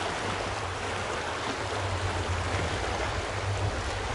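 Trophy Truck off-road race truck approaching on a dirt track: a low engine drone that grows slightly louder, under a steady hiss.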